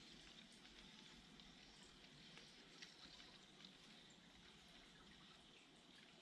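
Near silence: a faint steady hiss with a few soft scattered ticks.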